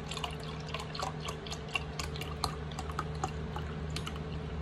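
Chicken stock pouring from a carton's spout into a glass measuring cup, a steady trickle broken by many small irregular splashes and drips, over a steady low hum.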